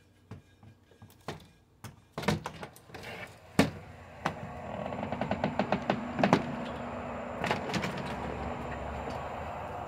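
Footsteps and handling knocks, then a door opened with a loud thunk about three and a half seconds in. After it comes a steady outdoor background hum, with a quick run of clicks shortly after.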